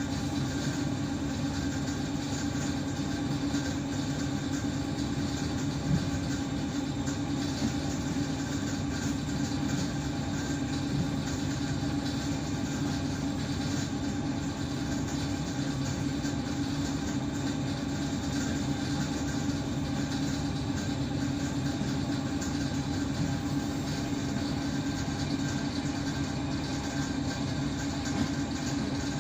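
ED9M suburban electric train heard from inside the carriage: a steady, even noise with a constant low hum and a few faint higher steady tones.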